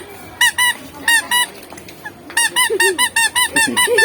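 A squeeze toy honking in short, high squeaky toots. It gives a few spaced honks, then a quick run of them from a little past the middle, about six a second.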